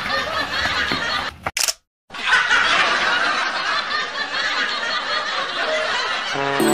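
Continuous laughter, dense and fluttering, broken about a second and a half in by a brief gap with a single sharp click. It then resumes until a cheerful music jingle starts at the very end.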